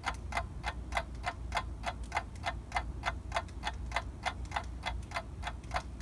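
Clock ticking steadily and quickly, about three to four ticks a second, over a low steady hum.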